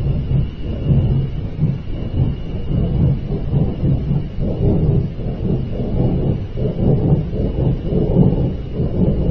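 A continuous low rumble that swells and fades unevenly, with a faint steady high tone above it.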